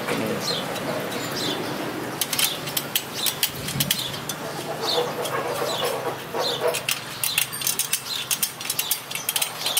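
Spoke wrench turning the nipples on a motorcycle's laced spoke wheel during truing, with small scattered metallic clicks and ticks. Short high downward chirps of small birds come about once a second.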